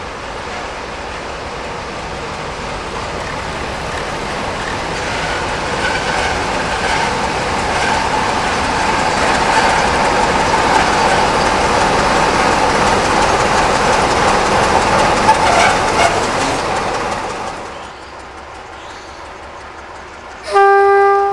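Two coupled CFR Class 60 (LDE 060-DA) diesel-electric locomotives with Sulzer engines running light past at close range. Engine and wheel noise grows as they approach, peaks as they pass, then drops off sharply as they move away. Near the end, a horn sounds once, briefly.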